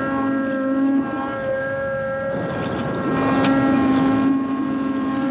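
Arctic Cat Mountain Cat snowmobile's two-stroke engine running at steady high revs under load on a climb. About two seconds in, the engine note briefly fades into a rushing noise, then comes back louder.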